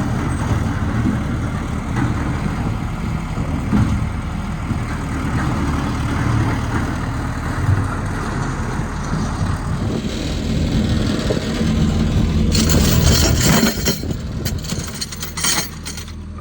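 A motor vehicle engine running steadily at idle. About twelve seconds in it gives way to a rougher, hissier noise with a few sharp clicks.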